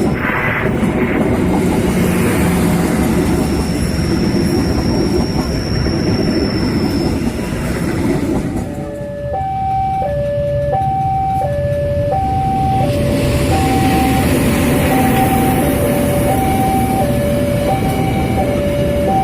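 A train rumbles past with heavy running noise. About nine seconds in, a two-tone warning signal starts, alternating steadily between a high note and a low note and continuing over the rumble.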